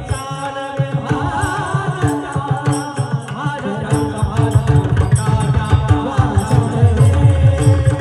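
Abhang, a Marathi devotional song, sung with pakhawaj drum accompaniment: a wavering sung line over fast, dense drum strokes and steady held tones beneath.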